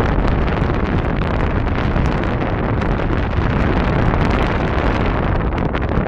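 Steady, loud wind rushing over the microphone of a camera on a paraglider in flight.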